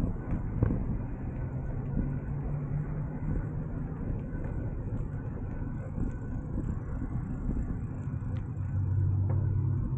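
Wind buffeting the microphone and a bicycle's tyre rumbling on pavement while riding, with the low hum of car traffic swelling twice, about a second in and again near the end.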